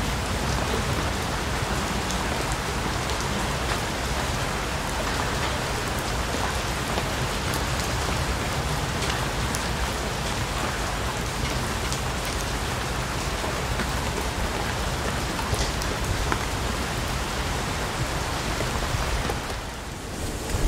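Heavy rain pouring steadily onto papaya leaves, an even hiss with scattered tiny drop ticks, easing briefly near the end.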